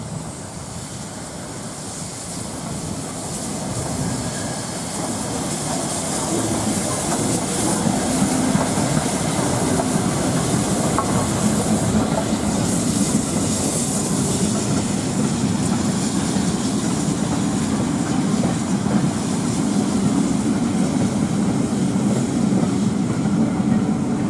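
A steam-hauled train running on the rails, growing louder over the first several seconds and then staying loud and steady, with the clickety-clack of wheels over rail joints.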